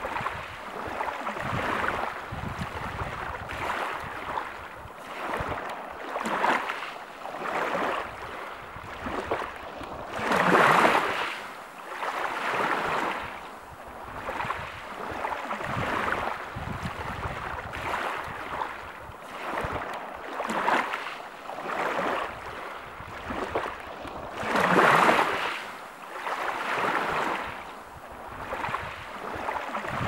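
Ocean waves washing in and drawing back in a steady rhythm of swells every couple of seconds, with two larger waves breaking about ten seconds in and again some fifteen seconds later.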